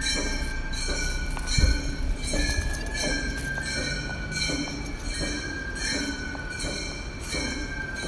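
Background music: sustained high tones that shift slightly in pitch over a pulse repeating about every half second, with one heavy low thud about a second and a half in.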